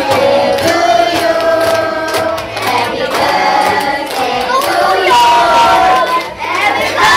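A group singing together, a woman's voice amplified through a microphone, with hands clapping along in time.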